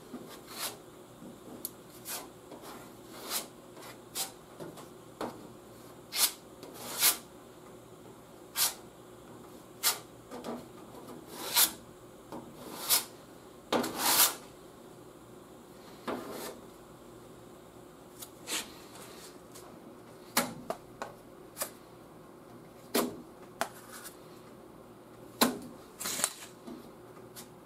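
Steel body-filler spreader scraping body filler across a truck's fender panel in short, irregular strokes, roughly one a second, each a brief sharp scrape.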